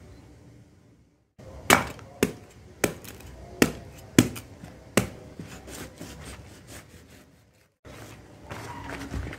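A knife chopping into a young jackfruit: six sharp chops about half a second apart, followed by several lighter cuts.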